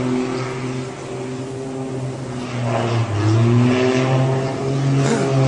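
Small airplane's engine droning steadily, its pitch shifting a few times as the plane dives toward the sea.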